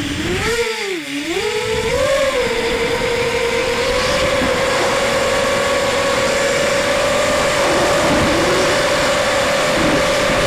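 ZMR250 racing quadcopter's four T-Motor 1806 2300Kv brushless motors spinning 5-inch props, heard from the onboard camera. They spool up at takeoff with the pitch wavering up and down for the first two seconds, then settle into a steady high whine in fast flight.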